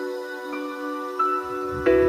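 Soft, ambient intro music of sustained ringing notes, with new notes struck about half a second in, just after one second, and a louder one near the end.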